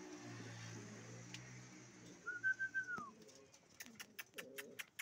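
Pigeons cooing, low and steady for the first couple of seconds, then a single higher whistle-like note, and near the end a quick run of sharp clicks among short low calls.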